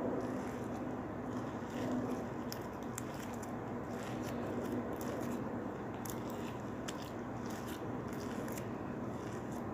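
Glue slime, stiff from extra activator, being kneaded and pulled by hand: irregular small sticky crackles and pops over a steady low background hum.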